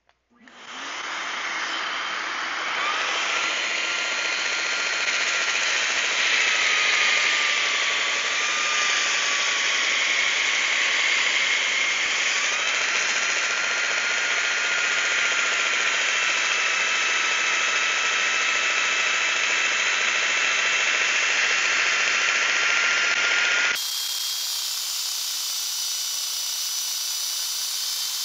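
Porter-Cable handheld belt sander with 60–80 grit paper starting up and running while sanding the coped profile of an MDF baseboard. Its steady whine dips and shifts in pitch now and then as the belt is pressed into the work, and it turns a little quieter for the last few seconds.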